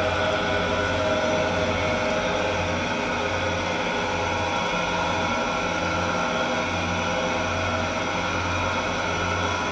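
Industrial dough mixer running, its hook turning through flour and water in a stainless-steel bowl: a steady mechanical hum with a slow, regular throb.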